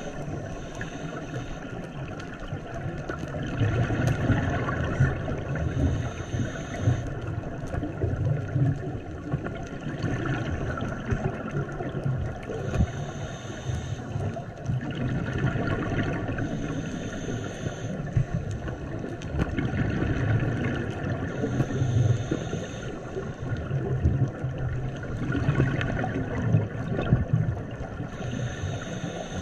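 Scuba regulator breathing underwater, in a slow repeating cycle every few seconds: a short high hiss with each inhalation and a louder rush of bubbles with each exhalation.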